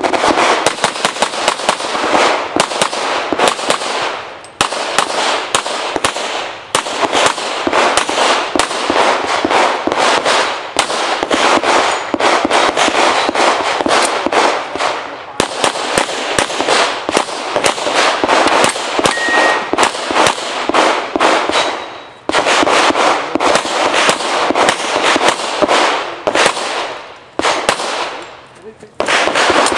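Rapid pistol fire from a Springfield Armory XDm in .40 S&W, shot in fast strings with short breaks between them while the shooter moves and reloads during a USPSA stage.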